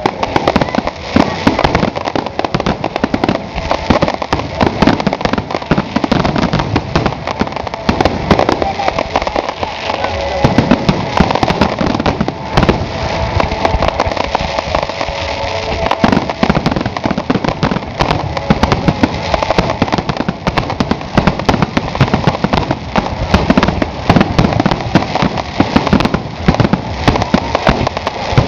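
Fireworks display at full intensity: a dense, unbroken barrage of aerial shells bursting and crackling in rapid succession.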